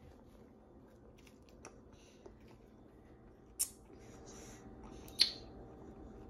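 Toddler sipping smoothie through a sippy-cup straw: faint sucking, with two short sharp smacks, one about three and a half seconds in and another just after five seconds.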